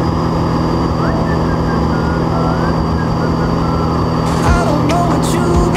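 Extra aerobatic plane's piston engine and propeller droning steadily, heard inside the cockpit, with a steady high whine over it. A few sharp clicks come near the end.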